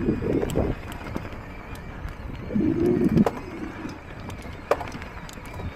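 Mountain bike rolling along a dirt trail: tyre and wind rumble at first, then quieter rolling with a few sharp clicks and knocks from the bike. A short low hooting tone sounds about two and a half seconds in.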